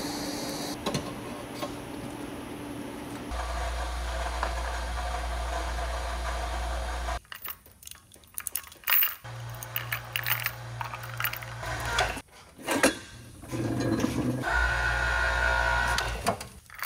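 Background music. From about halfway in, sharp metallic clinks and rattles of a hand chain hoist's chain as it is pulled.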